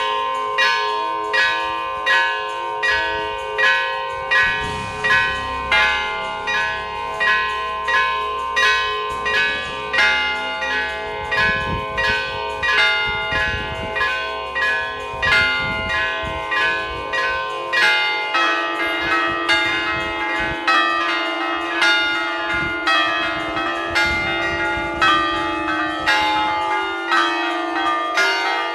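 Several bells of a Greek Orthodox belfry rung by hand, their clappers pulled by ropes, in a steady festive peal of overlapping strikes at about one and a half main strokes a second. The peal begins abruptly, and about two-thirds of the way through the pattern changes as a deeper bell sounds more strongly.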